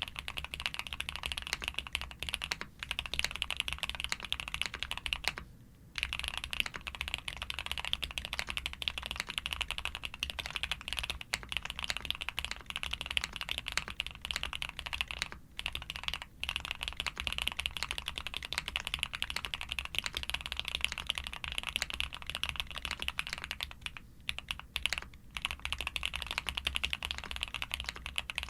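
Fast, continuous typing on a Suit80 custom mechanical keyboard built with Cherry-top + SP-Star white frankenswitches, a POM plate, full foam and DMK Astronaut keycaps. There is a brief pause about five and a half seconds in, over a steady low hum.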